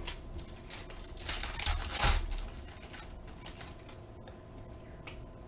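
Trading cards being flipped and slid against one another: a run of light clicks and taps, with a louder rustle of cards sliding about a second in.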